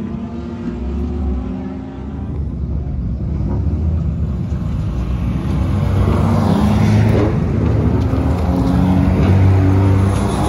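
Nissan Pulsar race car engines: at first cars running around the circuit at a distance, then, partway through, cars rolling slowly past close by at low revs, growing louder.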